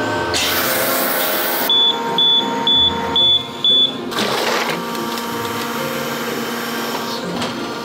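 Silicone compression-molding press opening: a hiss, then five short high beeps from the machine's warning beeper about half a second apart, and another short hiss, over a steady machine hum.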